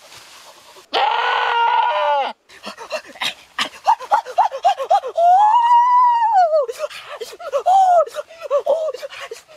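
A goat bleats and a man cries out in short yells and groans, with one long cry in the middle that rises and then falls.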